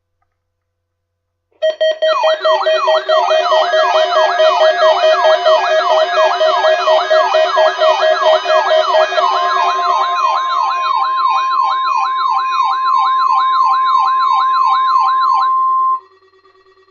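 Weather radio alert alarms: several electronic sirens sounding together, their pitch sweeping up and down about two to three times a second over steady beeping tones. They start abruptly about a second and a half in and cut off suddenly near the end.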